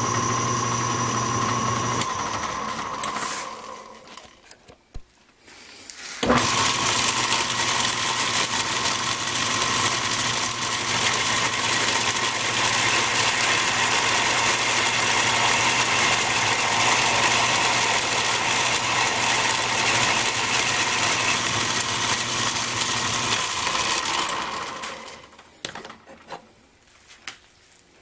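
A small belt-driven Craftsman 109 bench lathe running with a steady hum and hiss. It stops about 3 seconds in, starts again with a sudden rise about 6 seconds in, runs until about 24 seconds in, then spins down, followed by a few small knocks.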